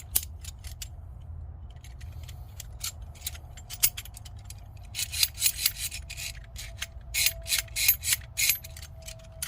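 Adjustable jaws of 10-inch pliers wrenches (Icon and Knipex) being slid open and shut, clicking metal on metal through their detent positions: scattered clicks at first, then quick runs of clicks about halfway through and again near the end.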